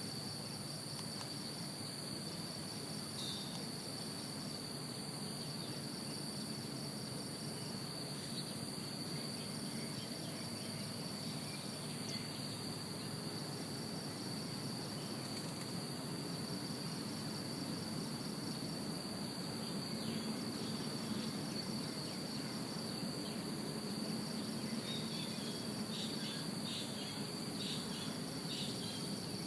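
Steady high-pitched insect chorus, a continuous drone holding two pitches, with a few faint short chirps near the end.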